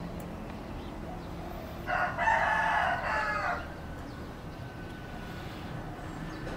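A rooster crowing once, a single call of under two seconds about two seconds in.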